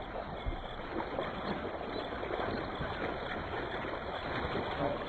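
Water sloshing and splashing: a steady watery wash broken by many small irregular splashes.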